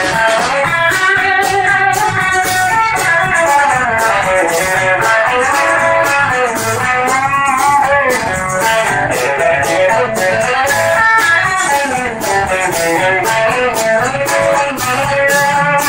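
Live country band playing an instrumental break between verses: a melodic lead line with bent notes over strummed guitars, bass and a steady drum beat.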